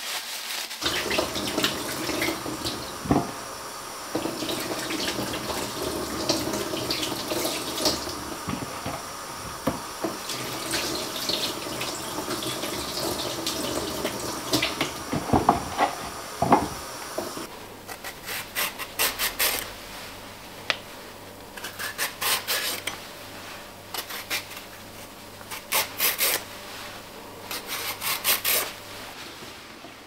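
Kitchen tap running into the sink while potatoes are rubbed clean by hand in a plastic bowl. About halfway in the water stops, and quick scraping strokes come in short bursts: a vegetable peeler skinning the potatoes.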